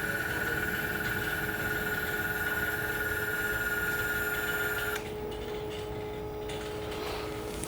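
Electric actuator of the water heater's boiler-water control valve running as it drives the valve closed, after the temperature setting was lowered past the set point. It makes a steady high whine that cuts off suddenly about five seconds in, when the valve reaches closed. A steady lower hum continues beneath.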